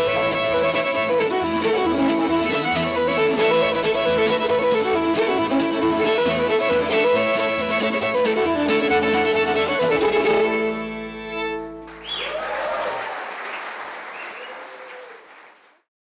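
Old-time string band of two fiddles, acoustic guitar and upright bass playing a fiddle-led instrumental passage, which ends on a held chord about ten seconds in. Audience applause follows and fades out.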